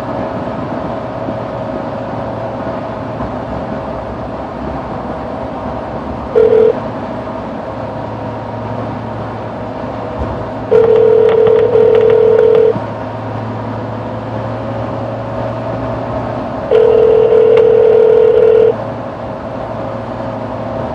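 Telephone ringback tone heard through a phone's speaker while the call rings through to the store: a short ring about six seconds in, then two full two-second rings six seconds apart. A steady car-cabin drone runs underneath while driving.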